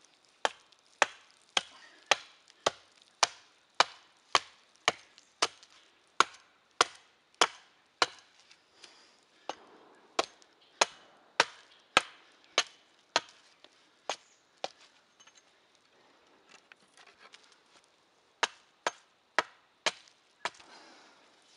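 A blade chopping into the end of a wooden pole to sharpen it into a point for a stake. Sharp strokes come about two a second, with two short pauses, one about eight seconds in and one about fifteen seconds in.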